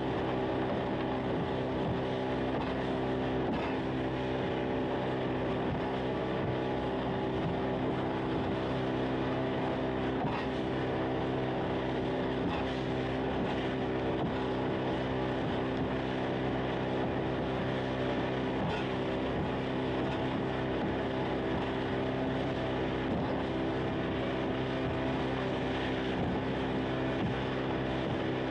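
A motorboat's engine running steadily at a constant cruising speed, one even drone with no change in pitch or loudness.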